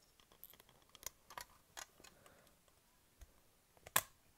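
Scattered light clicks and taps of a plastic loom, its hook and rubber bands being handled as bands are moved onto the pegs. The loudest click comes about four seconds in.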